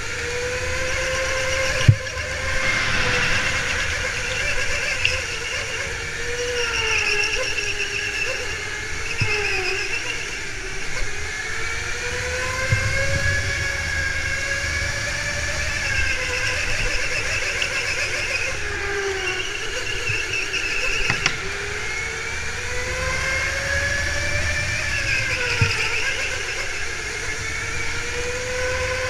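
Electric go-kart motor whining from the driver's seat, its pitch rising and falling in long sweeps as the kart speeds up down the straights and slows for the corners. A few sharp knocks sound along the way, the loudest about two seconds in.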